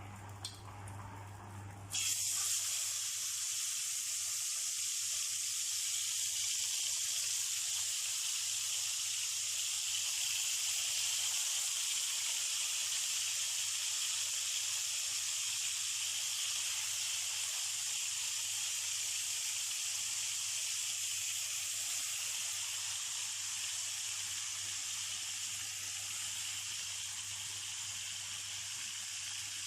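Marinated chicken pieces hitting hot cooking oil in a frying pan, setting off a sudden, steady high-pitched sizzle about two seconds in that keeps going, easing slightly toward the end.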